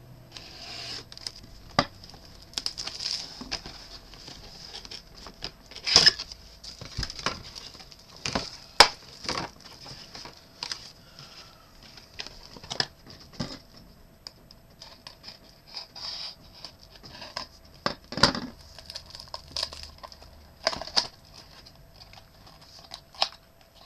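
A cardboard trading-card box is opened and its wrapped card packs handled: irregular rustling and crinkling of packaging, broken by sharp clicks and taps, a few of them much louder.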